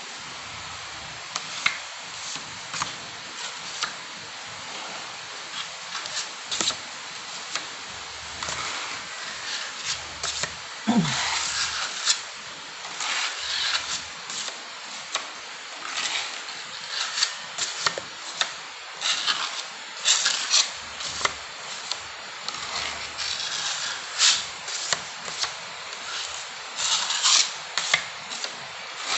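Steel putty knife scraping and clicking against a hawk board and the wall while spreading wall putty, a long run of short irregular scrapes and taps. One short falling low sound stands out about eleven seconds in.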